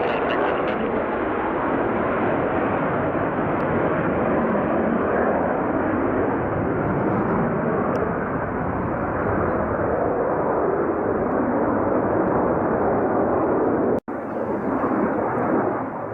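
Military fighter jet engine noise: a loud, steady rush, broken by a split-second dropout about 14 seconds in.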